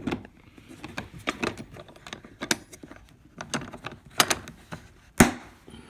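Plastic ammo-can battery box being handled: a series of light clicks and knocks, with one louder knock about five seconds in.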